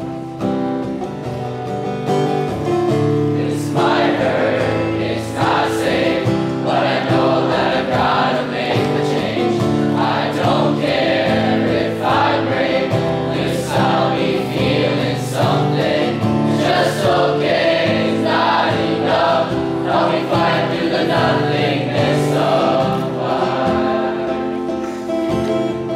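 A group of boys singing a song together in unison over an instrumental accompaniment; the accompaniment plays alone for the first few seconds before the voices come in.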